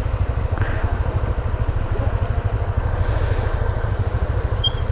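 Motorcycle engine running under a heavy, choppy rumble of wind on the microphone.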